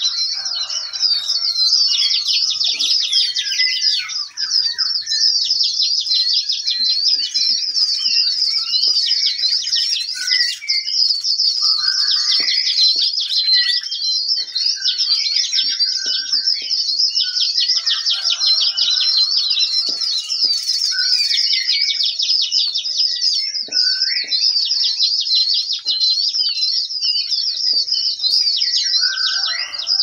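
A flock of small caged birds in an aviary chirping together: a dense, unbroken high twittering of rapid repeated notes, with scattered lower calls over it.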